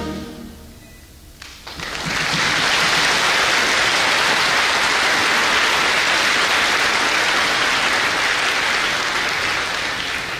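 A school concert band's last chord dies away, and about a second and a half later the audience breaks into steady applause, which begins to fade near the end.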